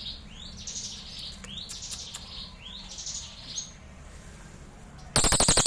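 Crested jay (cililin) calling: short rising chirps about once a second, then about five seconds in a loud, fast, dry rattle starts.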